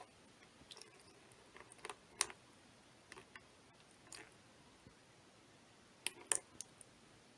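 Scattered soft clicks and taps of small plastic containers and wet paper towel being handled, with two louder taps about two seconds in and a cluster around six seconds in.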